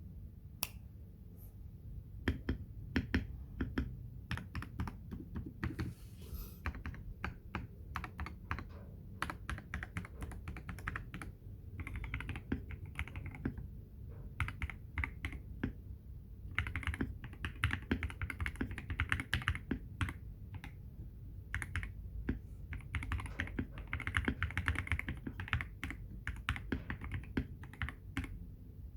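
Typing on a Feker IK75 V2 gasket-mount mechanical keyboard fitted with a polycarbonate plate, lubed Everglide Water King 62g switches and PBT XDA keycaps: a steady stream of keystrokes with several faster flurries.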